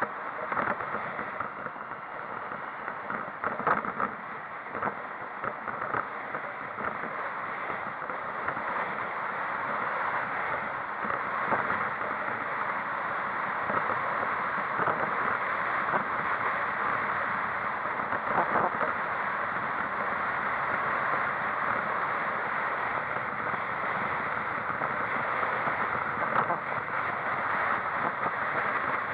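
Steady road and wind rush of a moving vehicle, growing a little louder over the first ten seconds, with a few light knocks.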